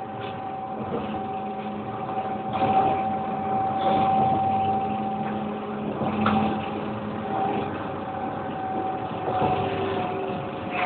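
Alstom Citadis tram running, heard from inside the car: a steady electric hum over the rumble of steel wheels on the rails, with a few brief knocks.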